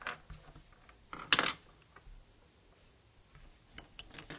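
Colored pencils being handled and set down on a desk: a few light wooden clicks and clacks, the loudest a short clatter about a second and a half in, with several quieter ticks near the end.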